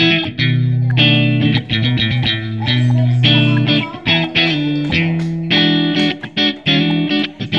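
Background music led by guitar, with held chords that change every second or so.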